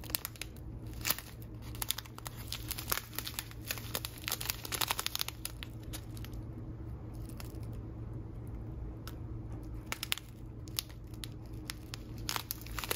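Small clear plastic zip-top pouch of loose-leaf tea crinkling as it is handled and turned in the hands, with a sparser stretch of crackles in the middle.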